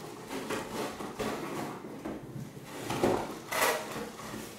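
Cardboard shipping box and its cardboard packing inserts scraping and knocking as a boxed vacuum cleaner is tugged at to free it, with a louder scrape about three and a half seconds in.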